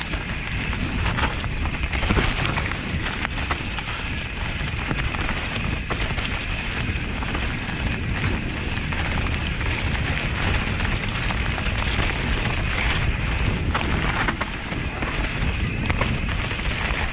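Mountain bike riding fast down a forest trail: tyres crunching and crackling over dry leaf litter and dirt in a steady loud rush, with scattered knocks and rattles from the bike over bumps.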